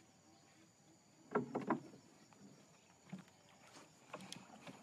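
Wooden fishing boat moving through water: a quick cluster of knocks and splashes about a second and a half in, then a few lighter scattered knocks.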